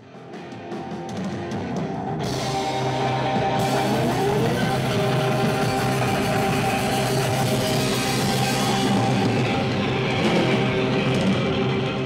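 Loud live band music with drums and sustained pitched tones, swelling up from silence over the first couple of seconds.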